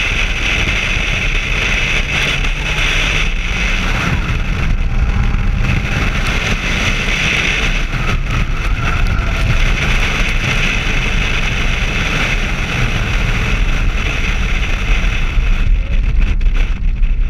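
Nissan 200SX S14 running hard around a race track, its engine mixed with heavy wind rushing over an outside-mounted action camera. The high rushing thins out near the end.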